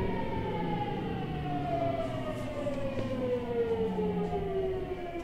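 Hitachi GTO-VVVF inverter and traction motors of a Seibu 6000 series train heard from inside the car: a whine of several tones falling steadily in pitch as the train slows under electric braking, over the rumble of the wheels.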